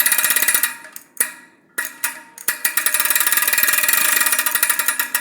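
Bicycle freewheel ratchet clicking in a fast, even, high-pitched run of about fifteen clicks a second as the wheel spins. A small metal piece pressed against it makes the clicking loud, like a cassette hub. The run stops a little under a second in, a couple of single clicks follow, and a second run starts about halfway through.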